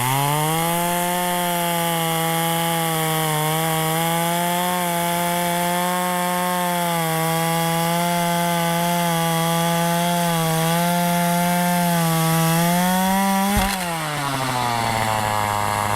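Chainsaw running at high speed and cutting through firewood, its pitch holding nearly steady under load. About three-quarters of the way through there is a knock, and the engine drops back to idle.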